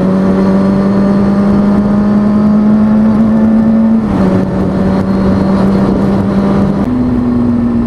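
2003 Kawasaki ZX-6R 636 inline-four engine running under way at steady throttle, with wind rush. The engine note climbs slowly, drops about four seconds in and steps back up near the end.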